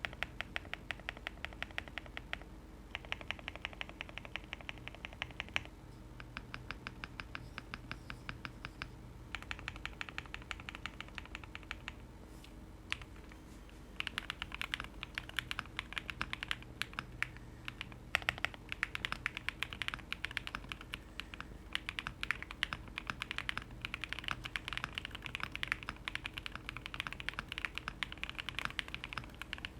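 Jelly Epoch custom keyboard with lubed OwLab Tungsten switches, a polycarbonate plate and PBT keycaps being typed on. It starts with four runs of rapid, evenly paced keypresses separated by short pauses. After a gap about 14 seconds in, it goes into continuous, denser typing.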